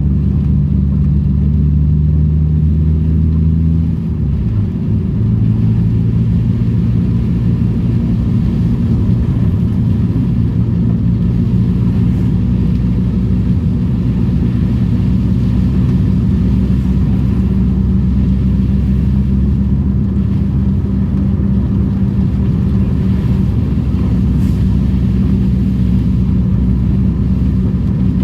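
Daihatsu Charade's engine running steadily as the car drives, under a steady hiss of road noise. About four seconds in, the engine note dips and drops to a different pitch, then runs on steadily.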